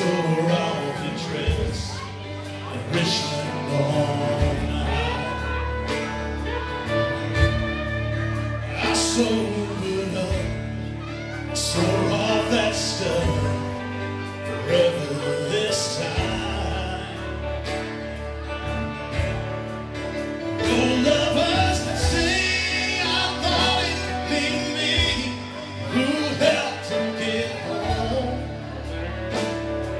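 A live band playing a song: a male lead singer over guitars and a drum kit, with a steady beat.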